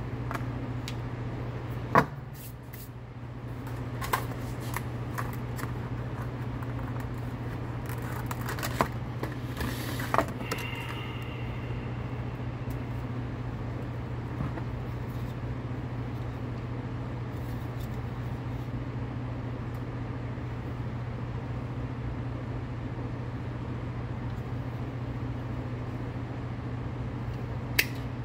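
A steady low hum with scattered clicks and taps as a coil of cannon fuse is handled on a wooden bench. Near the end comes a single sharp snip as the fuse is cut with side cutters.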